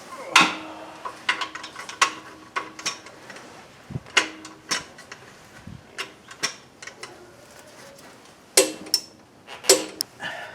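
Torque wrench tightening the wheel's lug nuts to spec: irregular ratchet clicks and metal clacks, with a few louder clicks near the end.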